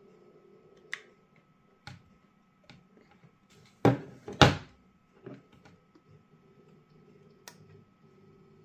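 Handling of an acrylic-cased Tesla coil plasma speaker: sharp clicks as the power plug is pushed into its jack, then two loud knocks about four seconds in as the case is set down on the table, followed by a few small clicks as it is picked up again.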